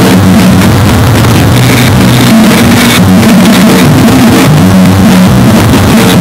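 Drum kit played fast with wooden sticks, fed through guitar distortion pedals: a loud, unbroken wall of distorted noise in which the hits blur together, with low droning pitches that shift every second or so.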